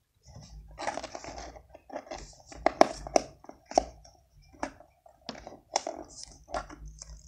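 Hands working at a plastic salt container's lid that won't open: a series of irregular sharp clicks and knocks with scraping and rustling between them, the sound of the lid being forced until it breaks.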